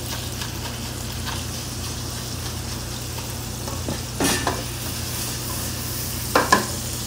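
A wire whisk scrapes and beats an egg-and-pepper mixture in a stainless steel bowl over the steady sizzle of asparagus frying in guanciale fat, with a steady low hum underneath. Sharp metal clanks come about four seconds in and twice near the end, as the pans are handled.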